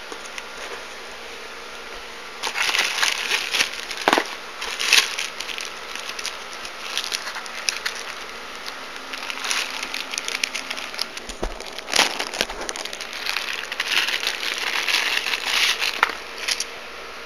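Plastic packaging bag crinkling and rustling as a laptop charger and its power cord are unwrapped and pulled out, starting about two and a half seconds in, with a few sharp clicks along the way.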